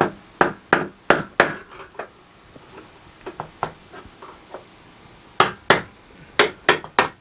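A series of sharp hammer blows on a steel van roof beam, knocking it loose at its spot welds. A quick group of strong blows comes at the start, lighter taps follow, and another group of strong blows comes near the end.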